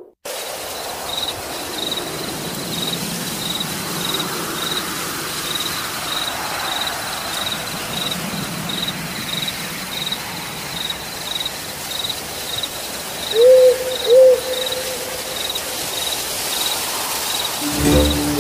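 Night ambience sound effect: crickets chirping steadily, about twice a second, over a steady hiss. An owl hoots twice about 13 seconds in, the loudest sound in the clip.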